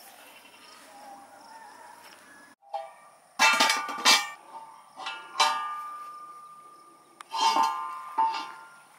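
Faint background for about two and a half seconds, then background music starts: ringing plucked-string notes in short groups.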